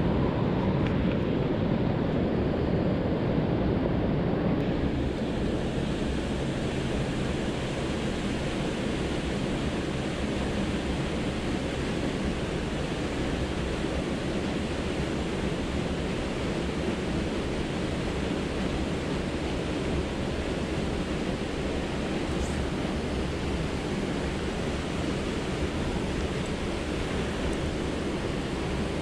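River water rushing steadily, an even, unbroken noise strongest in the low and middle range.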